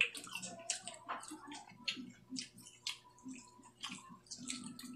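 People chewing crunchy food close to the microphone, fresh cucumber slices and dried fish, in irregular crisp crunches several times a second.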